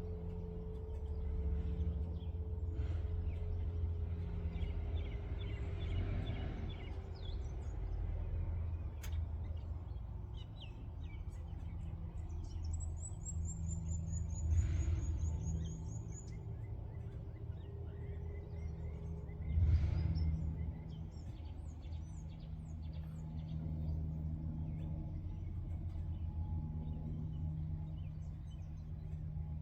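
Outdoor birdsong: scattered birds chirping and calling, including a rapid run of very high, slightly falling chirps about thirteen seconds in. Under it runs a steady low rumble.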